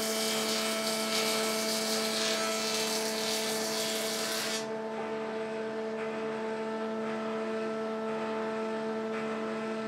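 Kity 637 planer-thicknesser running with a steady motor hum, a hissing cutting noise over it as a wooden strip goes through; the hiss stops about four and a half seconds in, and the machine runs on unloaded.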